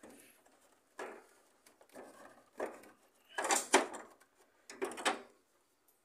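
Plastic casing of a Mirage Magnum 19 Inverter mini-split indoor unit creaking, clicking and scraping in several short bursts as a small screwdriver pries at its hidden latches. The loudest burst comes about three and a half seconds in.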